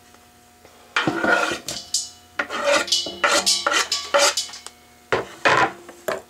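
Chopped pumpkin being scraped off a wooden cutting board into a stainless steel stockpot: a run of rasping scrapes on the board, with pieces knocking into the metal pot, starting about a second in.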